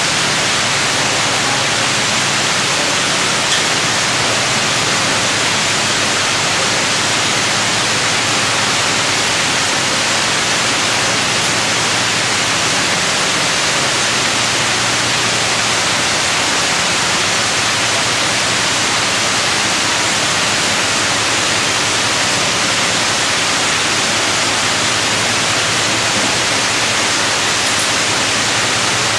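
Loud, steady hiss that stays the same throughout.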